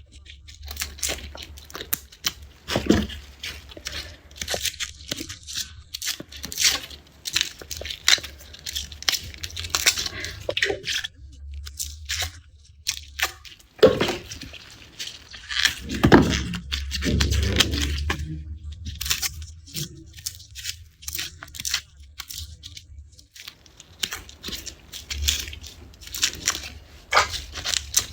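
Garlic being peeled by hand: dry papery skins crackling and tearing off the cloves in quick, irregular bursts, over a steady low hum. A louder, fuller stretch of rustling comes a little past halfway.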